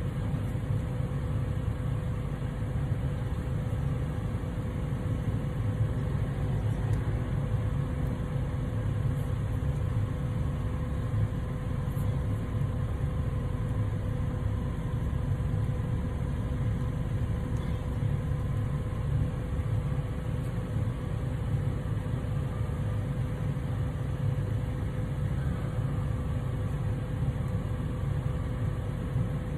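A steady low mechanical hum with a constant mid-pitched tone, unchanging throughout.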